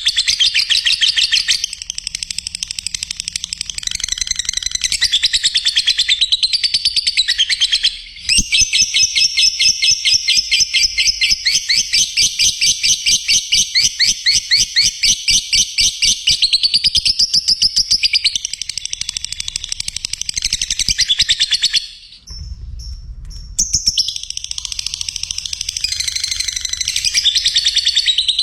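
Lovebirds chirping in fast, high, shrill runs of many notes a second, with a short break twice.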